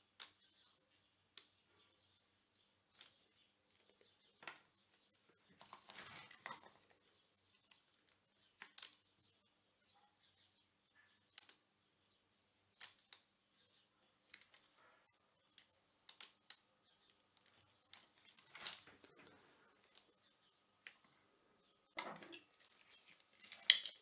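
Sparse light clicks and soft rustles of desoldering work: a soldering iron and copper desoldering braid pressed against the joints on a mechanical keyboard's underside by hands in latex gloves. The sharpest click comes just before the end.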